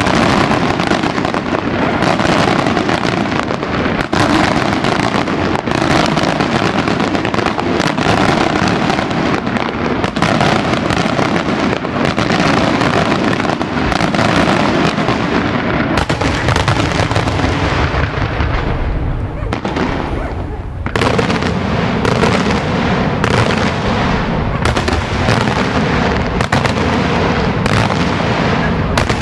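Daytime aerial fireworks shells bursting overhead in a dense, continuous barrage, the bangs following one another too fast to count. The barrage eases slightly about two-thirds of the way through, then resumes with heavier, deeper booms.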